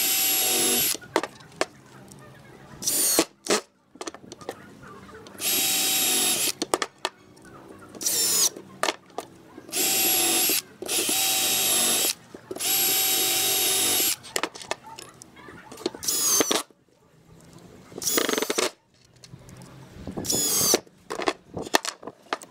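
Cordless drill boring holes into a clamped pine block, running in about five bursts of one to two seconds with a steady motor whine, plus a few short spin-ups whose pitch rises. Clicks and knocks of the drill and wood being handled fall between the bursts.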